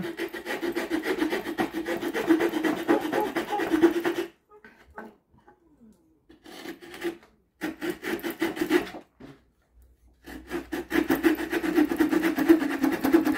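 Small folding saw blades cutting a softwood board with quick back-and-forth rasping strokes, in three spells. The first spell is a Victorinox Swiss Army knife's saw; after a pause of about three seconds the later spells are the Rocktol SK02 multitool's saw.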